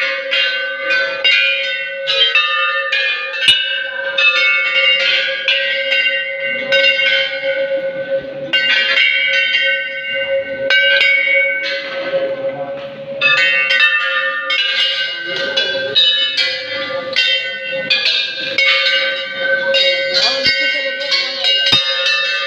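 Hanging brass temple bells struck over and over by many hands, with rapid, irregular clangs whose ringing overlaps into a continuous peal. A steady hum lies underneath.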